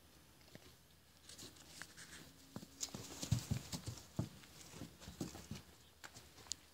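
Miniature donkeys' hooves stepping on a straw-strewn wooden stable floor: faint, irregular soft knocks, busiest about three to four and a half seconds in.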